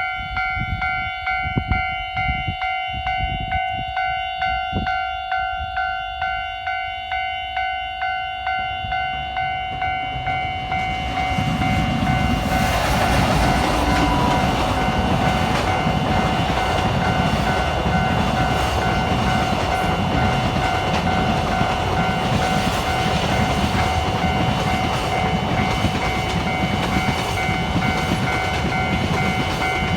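Japanese railway level-crossing alarm ringing in a steady, rhythmic ding-ding. About eleven seconds in, a freight train hauled by an EF510 electric locomotive passes through the crossing, its rumble and clatter of wagon wheels over the rails covering the bell, which keeps ringing underneath.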